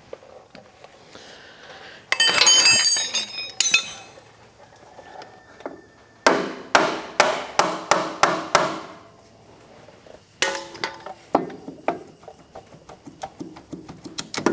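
Sharp metal knocks, about seven in quick succession and then a few more, as a bar is used to knock the Massey Ferguson 20's power steering pump loose from its mounting. Before the knocks there is a short ringing clatter of metal tools.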